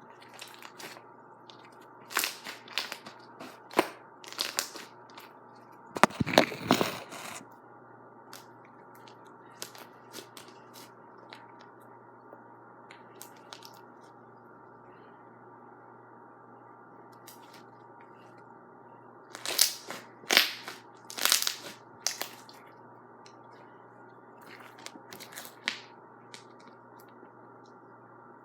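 Slime being squeezed and stretched by hand, in several short spells of sharp crackling and popping with quiet stretches between; the loudest spell comes about six seconds in.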